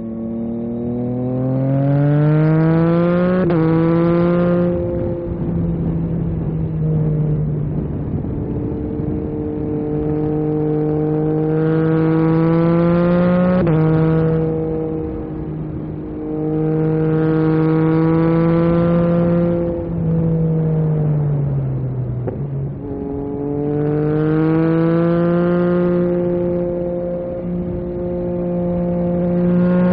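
Yamaha MT-09 SP's three-cylinder engine through an Akrapovic carbon racing exhaust, under way: the engine note climbs in pitch several times with sudden steps between, holds steady for stretches, and falls away about twenty seconds in before climbing again.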